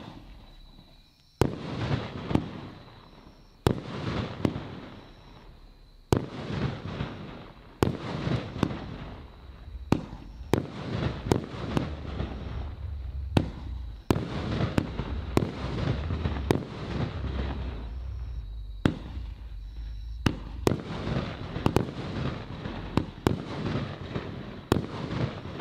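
Argento Orchid 30 mm, 13-shot consumer fireworks battery firing: a sharp crack every second or two as each shot launches and breaks, with dense crackling between the shots. It dies away near the end.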